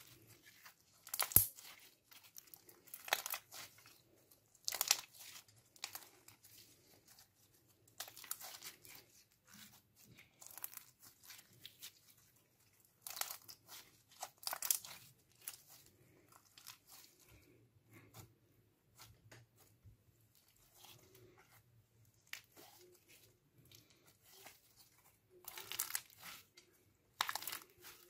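Glossy clear slime tinted with eyeshadow powder being squeezed, kneaded and stretched by hand: irregular sticky squelches and snaps as it is pressed and pulled apart, coming in clusters, the sharpest about a second in.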